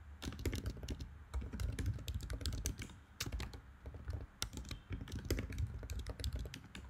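Typing on a computer keyboard: quick, irregular key clicks in short runs.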